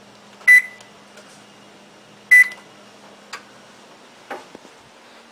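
Electric range's control-panel keypad beeping twice as its buttons are pressed: two short, high electronic beeps about two seconds apart, followed by a couple of faint clicks.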